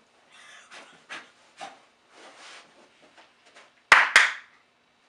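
Someone blowing out candles: a series of short breathy puffs, then two much louder puffs about four seconds in.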